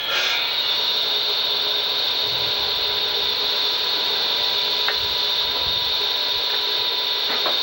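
MK masonry wet saw running steadily, its diamond blade giving a high grinding whine, with a couple of light knocks.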